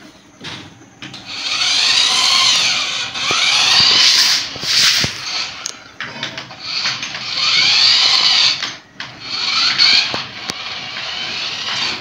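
Remote-control toy car's small electric motor and gears whining as it drives, the pitch rising and falling in arches as it speeds up and slows, in several runs broken by short pauses.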